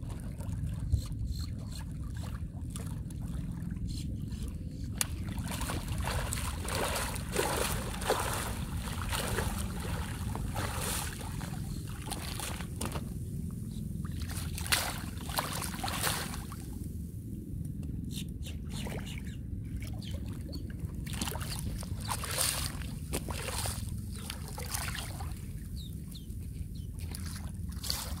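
A hooked nurse shark thrashing in shallow water, making repeated splashes in bunches, with a quieter spell in between. A steady low rumble runs underneath.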